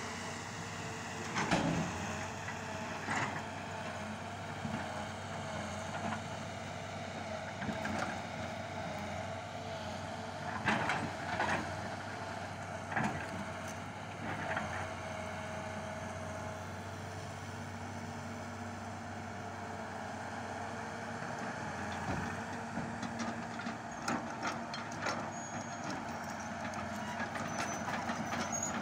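Heavy diesel machinery at work: a Hitachi crawler excavator and a tipper dump truck running with a steady engine drone. A wavering whine runs through the first half, and sharp knocks and clanks come every few seconds.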